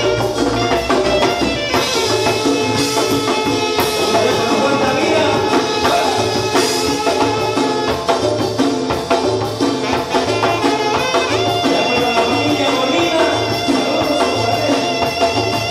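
Live Tierra Caliente band music: saxophone melody over a steady bass beat about twice a second, with drums and congas.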